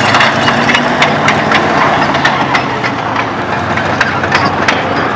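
Soviet T-34 tank driving on pavement: its V-12 diesel engine runs with a low drone that eases down in pitch over the first few seconds, under a steady clatter of its steel tracks.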